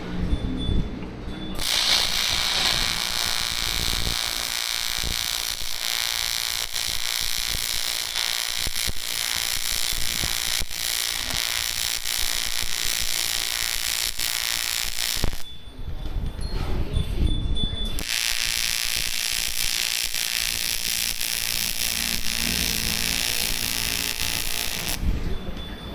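AC TIG welding arc on aluminium buzzing steadily, in two long runs of about fourteen and seven seconds with a short break between.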